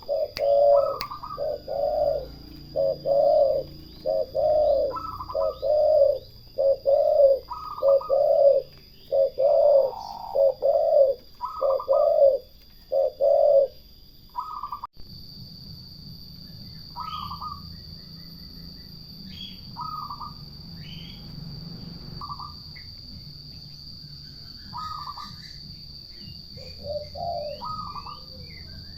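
Turtle dove cooing in a rapid, rhythmic series of low notes for about the first fifteen seconds. Then the cooing stops, and fainter, higher-pitched bird calls come at intervals over a steady high-pitched tone.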